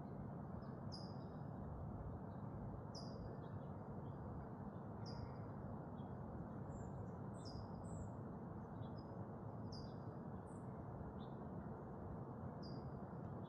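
Several birds chirping, one repeating a short falling chirp about every two seconds among scattered higher calls, over a steady low background hiss.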